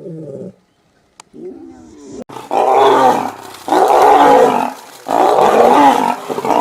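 A large animal roaring: three loud roars of about a second each, coming one after another from about two and a half seconds in.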